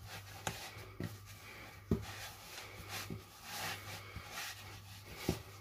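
Yeast dough being kneaded by hand on a floured stone countertop: soft rubbing and pressing with a few short dull knocks, the clearest about two seconds in.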